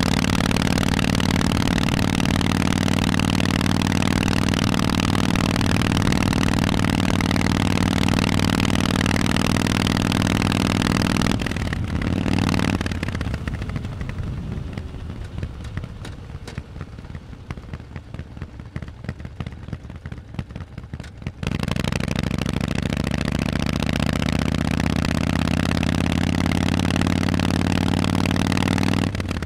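Harley-Davidson Forty-Eight's 1200 cc V-twin running through Vance & Hines exhausts, steady and loud under way for about eleven seconds. It then falls to a much quieter sound for about nine seconds, then suddenly comes back loud and rises in pitch as the bike accelerates.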